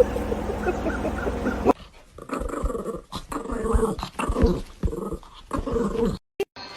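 A dog growling in short, irregular bursts, after a low steady hum in the first couple of seconds.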